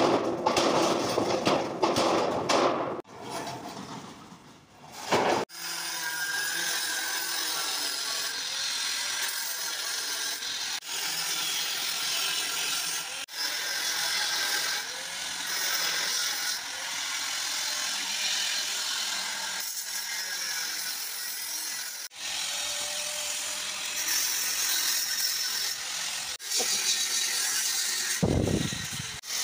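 Angle grinder cutting through the steel frame of a shed, a steady grinding noise that stops and restarts abruptly several times.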